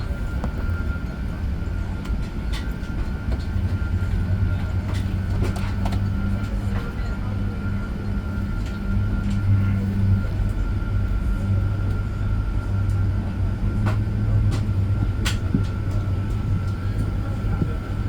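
Airbus A380 cabin noise: a steady low rumble from the engines and airframe, with a constant high whine and a few faint rattles and clicks.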